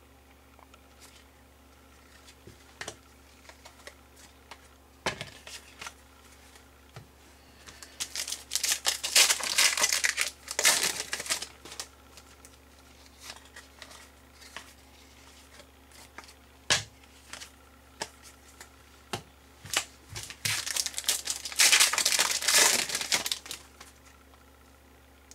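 Foil trading-card pack wrappers crinkling and tearing in two long stretches, with scattered short clicks and taps of cards being handled in between.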